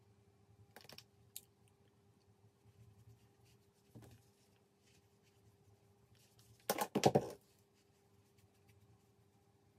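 Quiet room tone with a faint steady hum, broken by soft handling clicks from a makeup brush being used. About seven seconds in comes a short, louder rattle of quick clicks.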